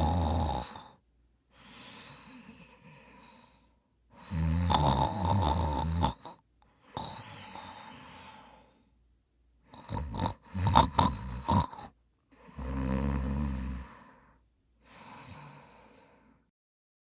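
A person snoring loudly: a low snore every four seconds or so, each followed by a quieter breath. About ten seconds in, a choppy run of short snorts.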